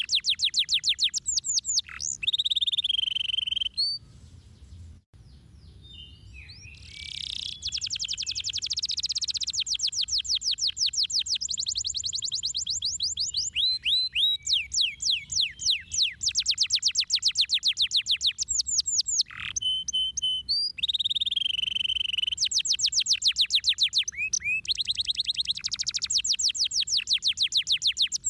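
Domestic canary singing: long runs of rapid, evenly repeated trilled notes, broken by short pauses between phrases and a quieter lull about four seconds in.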